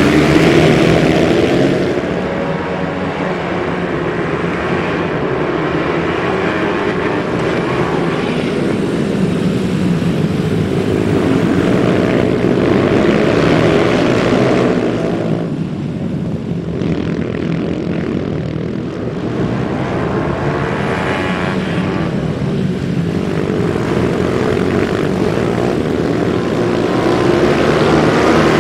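A pack of minimoto race bikes' small engines droning together at high revs as they race past. The sound dips in the middle and rises again near the end.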